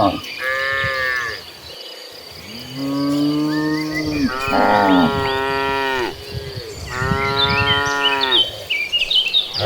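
Cattle mooing: about four drawn-out moos in turn through the herd, one short and higher, the others long and lower.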